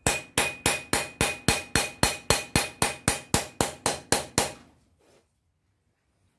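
Forging hammer striking a steel knife preform on an anvil in a steady run of about seventeen blows, about four a second, with a light ring from the anvil. The blows stop about four and a half seconds in.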